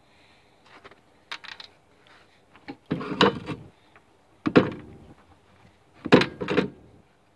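Handling noise from a bundle of spark plug wires and their plastic distributor cap: three short bursts of rubbing and knocking, about a second and a half apart.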